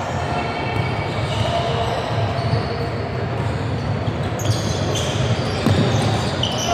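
Basketball bouncing on a hardwood gym floor as a player dribbles, with sneakers squeaking on the court.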